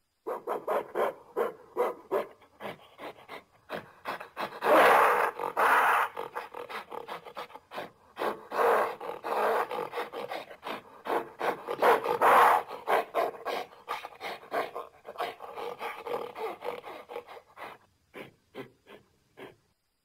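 Gorilla calling: a dense run of short grunting and panting pulses, with louder, rougher calls about five, nine and twelve seconds in. The pulses thin out near the end.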